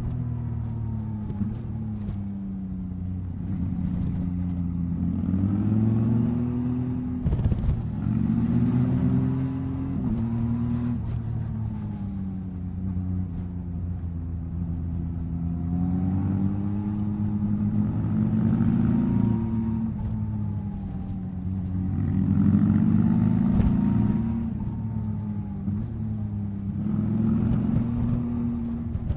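Yamaha MT-09 SP's inline three-cylinder engine under way, its revs climbing and falling again and again as the bike accelerates and eases off. A brief thump comes about seven seconds in.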